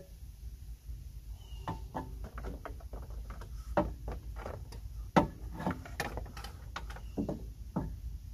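Irregular clicks and knocks of parts being handled during radiator removal on a pickup truck, a dozen or so sharp strokes at uneven spacing over a low steady hum.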